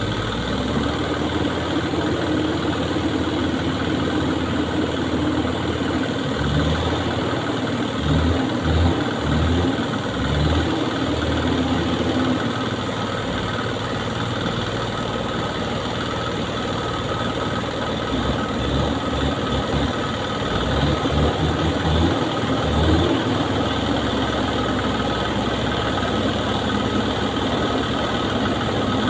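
Truck engine running steadily, with irregular low thuds in two stretches, one about six seconds in and one about eighteen seconds in.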